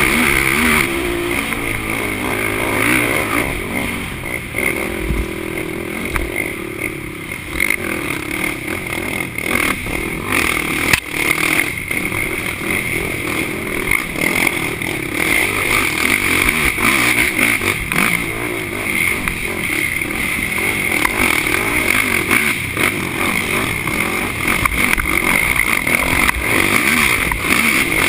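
Racing quad's engine running hard from on board, its revs rising and falling constantly as it rides a rough dirt trail, with scattered knocks and rattles over the bumps.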